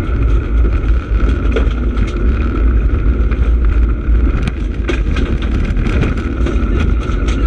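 Rally car at speed on a gravel stage, heard from inside the cabin: a heavy engine and road rumble with a steady tone over it, and scattered sharp knocks as gravel strikes the car.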